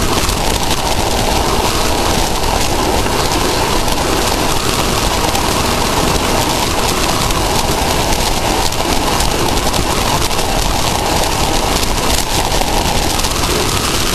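Off-road race vehicle running, heard as a loud, steady rush of wind and road noise over the engine on the camera's microphone.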